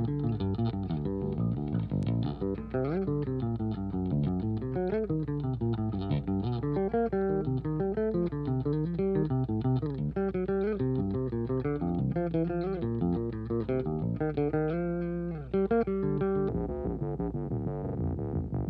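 Electric guitar line played through the Cog T-16, quick runs of plucked notes rising and falling over a steady low hum. The tone turns duller near the end.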